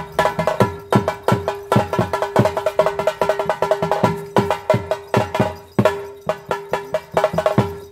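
Ritual drumming on a laced barrel drum: a fast, driving rhythm of heavy strokes whose low boom drops in pitch, with quick rolls of lighter strokes between them, over a steady held note.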